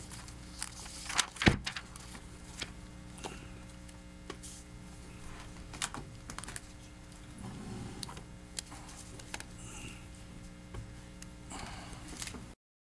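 Scattered clicks, taps and rustles as people get up and gather papers and bags in a meeting room, over a steady low hum. The sound cuts off abruptly near the end.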